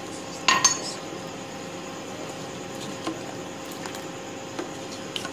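A spatula and cup clinking against a steel pot of milk on the stove: one sharp, ringing clink about half a second in, then a few light ticks, over a steady hiss and low hum.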